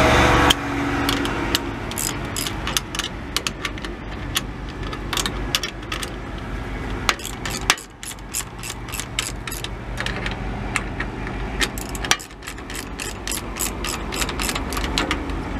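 Hand ratchet wrench clicking in quick, uneven runs as it spins down the nut on an exhaust pipe clamp, with a low steady hum underneath.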